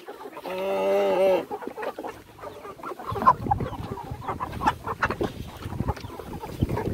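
Chickens clucking as they crowd a feed trough, with one long drawn-out call about half a second in. From about three seconds in, wind rumbles on the phone microphone under scattered clucks and the patter of feed poured from a bucket.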